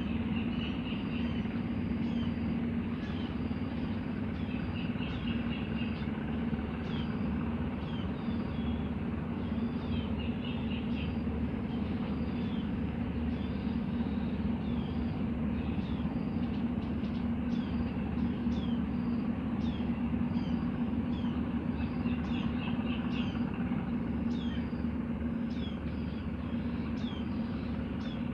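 Birds calling throughout with many short, high, falling chirps and now and then a quick trill, over a steady low hum that is the loudest part of the sound.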